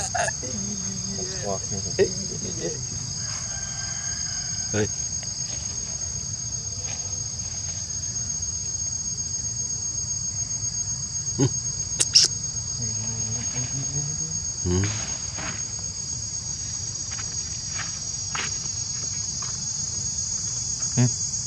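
A steady, high-pitched chorus of insects, with a few short clicks scattered through it.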